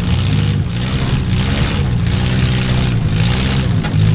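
Demolition derby car engines revving hard, surging up and down in pitch every second or so.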